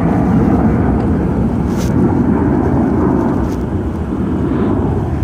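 Jet airliner's engines rumbling loudly as it passes, easing off slightly in the last couple of seconds; the spotter takes it for an Airbus A321.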